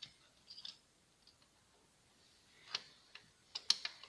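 A few light, scattered metal clicks and taps from a timing belt tensioner being fitted by hand onto its mount in the engine bay, the sharpest cluster of three or four clicks coming about three and a half seconds in.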